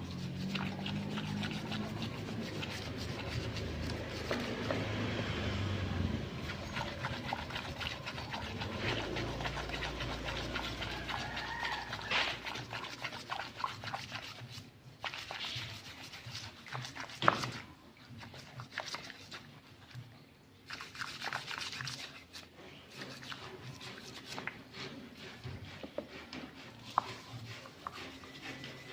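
Irregular, quick rubbing and scrubbing strokes on engine parts being cleaned by hand, with one sharp knock a little past halfway.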